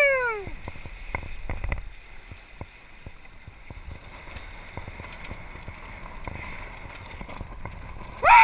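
Water splashing and gurgling along the hull of a small sailing dinghy under way in choppy water, with scattered small knocks. A person's loud shout, falling in pitch, comes at the very start and again near the end; these shouts are the loudest sounds.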